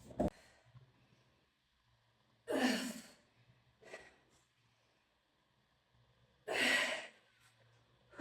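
A person breathing out heavily from exertion during a workout: two strong exhales about four seconds apart, with a fainter breath between them. A short sharp knock comes just after the start.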